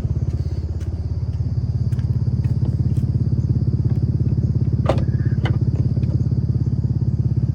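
Infiniti G37's 3.7-litre V6 idling steadily with a fast, even exhaust pulse and a faint high whine over it. A couple of sharp knocks about five seconds in.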